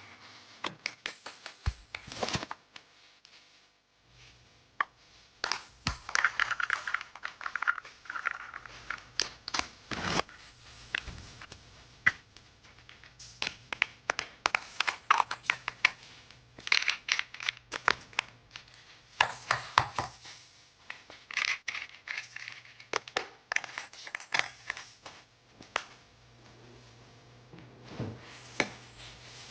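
Hands restocking a mini fridge with packaged items: plastic packaging crinkling and tearing, with frequent knocks and clicks as items are handled and set in place. A faint low hum runs underneath from about four seconds in.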